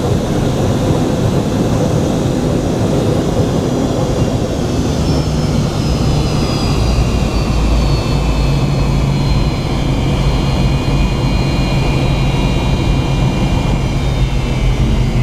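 Cabin noise of a McDonnell Douglas MD-88's tail-mounted Pratt & Whitney JT8D engines, heard from the rear of the cabin: a loud steady rush with a low hum, and a high engine whine that slowly falls in pitch from about a third of the way in.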